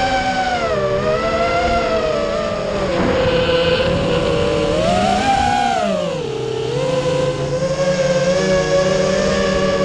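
FPV quadcopter's brushless motors and propellers whining, as picked up by its onboard camera. The pitch rises and falls with the throttle: it sags briefly about a second in, drops low about six seconds in, then climbs again.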